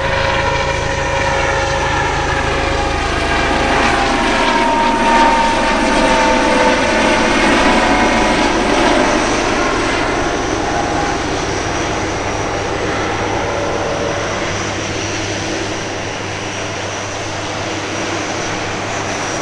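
MH-65 Dolphin helicopter flying past: a turbine and ducted tail-rotor whine over a regular rotor beat. The whine drops in pitch as the helicopter passes, about five seconds in, and is loudest just after, then eases slightly.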